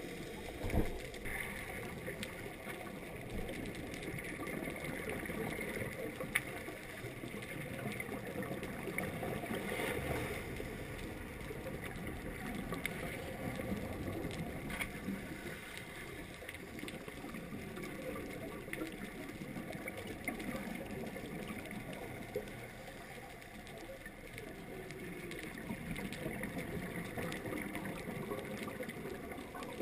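Underwater noise picked up through a GoPro's waterproof housing: a steady muffled rush and gurgle of water that swells and eases slowly, with a sharp knock about a second in and a lighter click about six seconds in.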